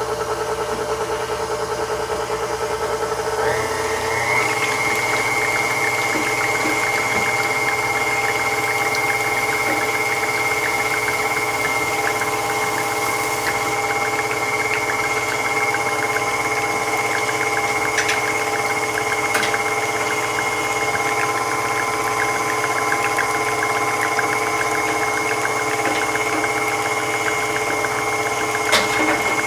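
A small electric motor runs with a steady whine. About three and a half seconds in it speeds up and rises in pitch, then holds steady until it cuts off right at the end.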